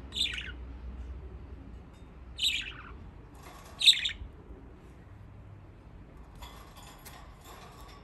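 Budgerigar calling: three loud, short squawks about a second and a half apart, each sliding down in pitch, the last the loudest. Softer raspy chatter follows near the end.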